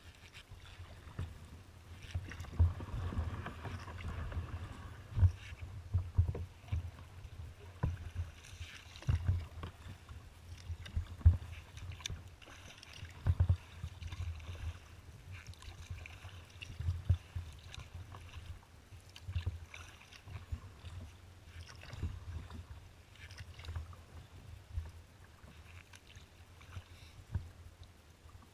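Kayak being paddled. Water splashes from the strokes, and irregular low thumps and knocks come from the water and paddle against the hull, heard through a camera mounted on the kayak's deck.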